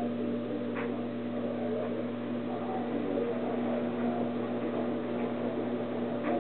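Steady machine hum with a few faint clicks.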